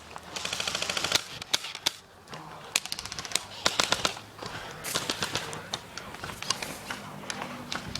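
Airsoft guns firing: a rapid full-auto burst of clicking shots right at the start, then scattered single shots and short bursts.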